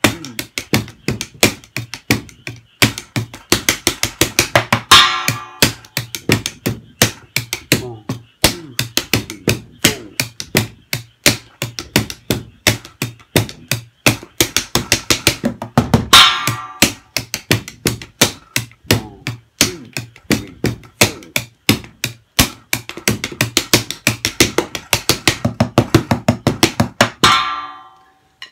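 Drumsticks playing fast single-stroke rolls around cardboard-box practice drums wrapped in plastic, with a splash cymbal struck as the accent three times, roughly every eleven seconds, the last near the end. It is a single-stroke tom-roll fill-in played over a steady count, with the cymbal marking the first beat.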